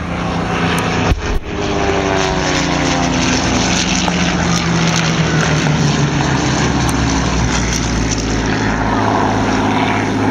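Second World War propeller fighter's piston engine flying past low and loud. Its note falls in pitch as it goes by.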